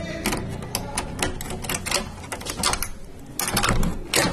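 Metal door lock and latch being worked by hand: a quick run of clicks and rattles, thickest near the end, as the door is unlocked.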